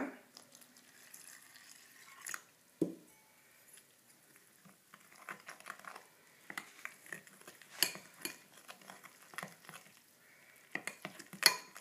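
Metal spoon stirring a thick flour-and-water batter in a glass bowl: soft wet scraping with many small clicks of the spoon against the glass, and a few louder clinks.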